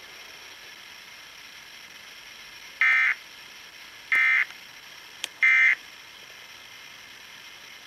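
Emergency Alert System end-of-message signal: three short bursts of digital data tones, about a second and a half apart, marking the close of a Required Monthly Test broadcast, heard over the radio with a steady hiss between bursts.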